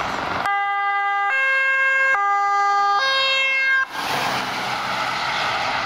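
Ambulance two-tone siren alternating between a low and a high note, two full cycles, then cutting off suddenly about four seconds in. After that comes an even rushing noise of the van driving past close by.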